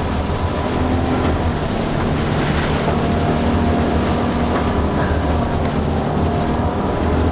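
Acura MDX's V6 engine running under throttle while its tyres churn through sleet and slush as it spins a donut, heard from inside the cabin: a steady low rumble with a faint engine note and a hiss of tyre and road noise over it.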